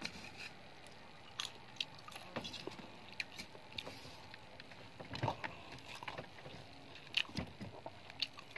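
Eating by hand: fingers squishing and scooping rice and fried chicken on a plate, with chewing and mouth smacks, heard as scattered small clicks over a faint hiss. The loudest smacks come a little after five seconds and again just after seven.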